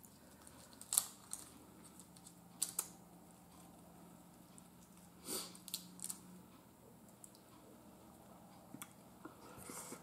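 Cooked shrimp being peeled by hand: scattered short crackles and clicks as the shells are pulled off.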